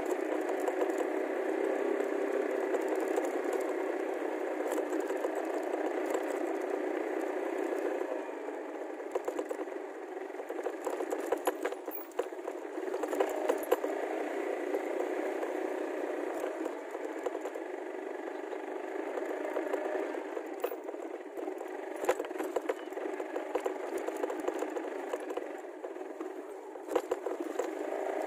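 Motorcycle tricycle's small engine running as it rides over a rough dirt road, with the frame rattling and clattering over the bumps. It runs a little quieter from about eight seconds in.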